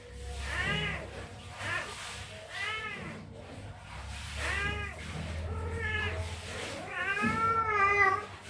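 Two-week-old kittens mewing repeatedly: about six high calls that rise and fall in pitch, the last one longer and the loudest.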